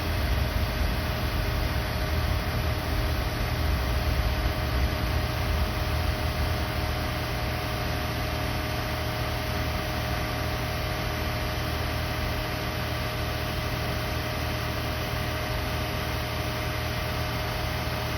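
Air-conditioning equipment running steadily, a low hum with a steady whine above it and an even hiss. This is the unit whose cooling is weak.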